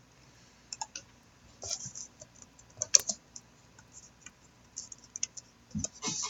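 Faint, irregular computer keyboard typing and clicks.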